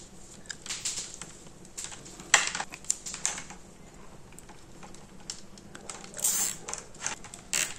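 Insulated copper earth wires rustling and clicking against each other and the plastic junction box as they are gathered into a bundle by hand, in light scattered clicks. Late on, a short zip fits a nylon cable tie being pulled tight around the bundle.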